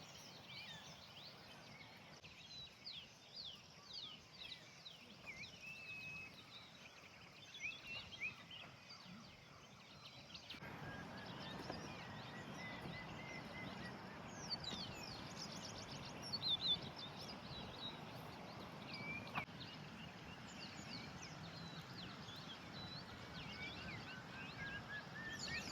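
Faint chorus of many small birds chirping and calling in short, quick notes. About ten seconds in, a steady rushing noise starts up beneath them and holds, with a thin held note running over it.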